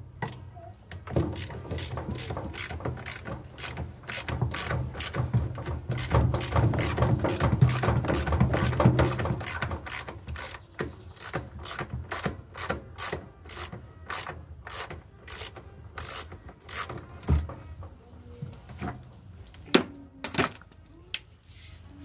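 Hand ratchet wrench clicking as a bolt on the front of a washing machine tub is unscrewed. The clicks come fast, with rubbing underneath, for the first half, then slow to single clicks about twice a second. A couple of sharper knocks come near the end.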